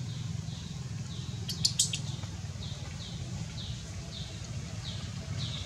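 A bird chirping in the background, short arched chirps repeating about twice a second over a steady low rumble. A brief cluster of sharp clicks comes about a second and a half in.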